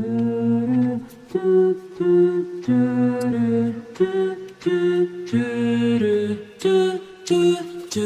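Background music: a melody of short held notes changing about every half second.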